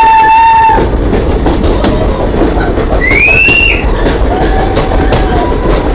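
Passenger train rolling along the track, a loud steady rumble with rapid clicking of wheels over rail joints. Short high-pitched squeals break in a few times, one rising in pitch about three seconds in.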